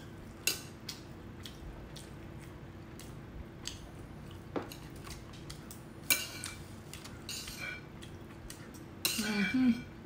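Metal chopsticks clicking and scraping against a ceramic bowl of black bean noodles in scattered taps, with busier flurries about six seconds in and near the end. A short hummed voice sound joins the last flurry, over a faint steady hum.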